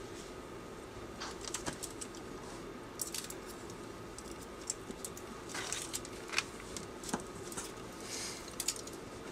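Small scratches and clicks of a craft knife and snap-off cutter working screentone on paper against a ruler, with the sheet being handled and rubbed down, over a faint steady hum.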